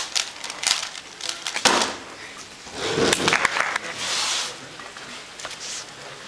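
Plastic 3x3x3 speed cube turned very fast, a quick run of sharp clicking turns, ending about a second and a half in with a loud slap as the hands come down on the timer to stop the solve.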